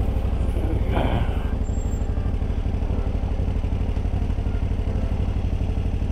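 KTM 990 SMT's V-twin engine running steadily at low revs, with an even low firing pulse and no revving.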